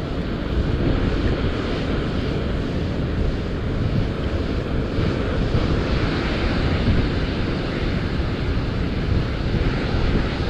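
Steady rushing roar of water pouring through a river spillway, with wind buffeting the microphone.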